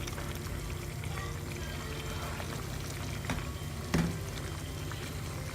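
Mutton braising uncovered in its own released juices, a steady sizzling and bubbling in the pan. A faint click a little after three seconds and a louder knock about four seconds in.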